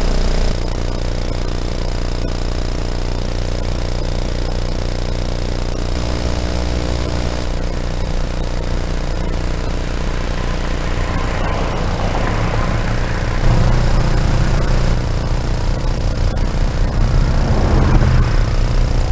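Muffled rumble and scraping handling noise from a hand-carried action camera, with road traffic going by: one vehicle swells past a little past the middle and another near the end.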